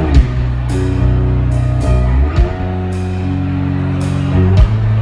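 Live rock band playing an instrumental passage: electric guitars holding chords that change every second or so over a drum kit, with regular drum and cymbal hits.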